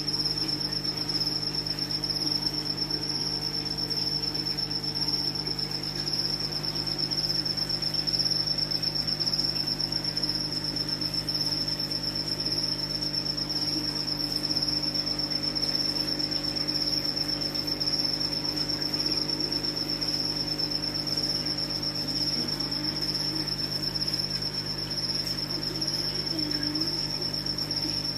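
A continuous, high-pitched, cricket-like trill that holds one pitch throughout, over a steady low hum.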